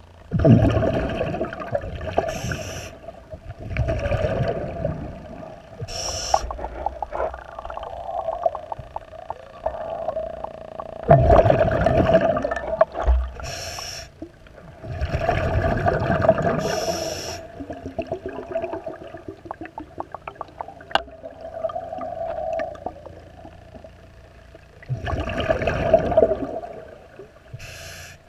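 A scuba diver's regulator breathing underwater: exhaled bubbles rumble out in bursts every few seconds, each with a short hiss of inhalation, over a steady hum. Faint clicks and scraping between breaths.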